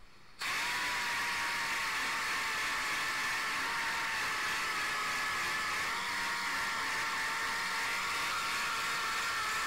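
Small handheld rotary sander with an abrasive disc running against a copper-plated brass radiator shell: a steady high motor whine that comes in sharply about half a second in and dips slightly in pitch about six seconds in. The copper is being sanded back to take out repair marks and pits before it is copper-plated again.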